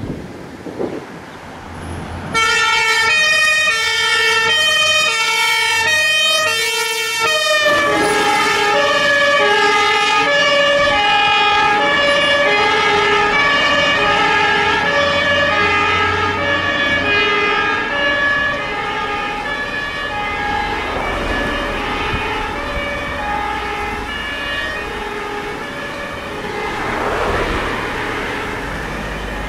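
German fire engines' two-tone Martinhorn sounding the alternating high-low tatütata pattern, starting about two seconds in over low truck-engine rumble. A second horn pattern joins about eight seconds in, out of step with the first. The horns fade toward the end as the trucks pass with engine and tyre noise.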